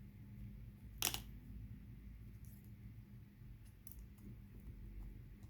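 Faint metal ticks of a lock pick working the pins of a small three-pin luggage padlock, with one sharper click about a second in.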